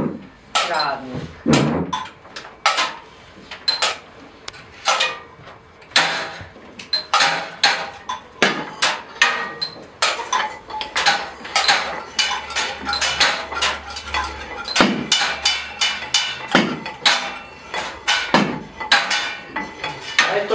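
An irregular series of sharp knocks and clinks, several a second, some ringing briefly like struck metal or crockery.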